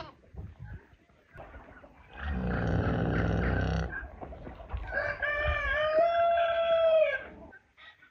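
A rooster crowing once, a long call that holds its pitch and then falls off at the end. Before it comes a loud, low, rough animal call of about a second and a half, and a short bleat right at the start.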